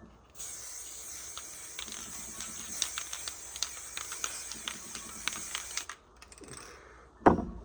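Aerosol activator spray hissing steadily onto a floating hydro-dip film for about five and a half seconds, with small crackling clicks, then stopping. A single sharp knock near the end.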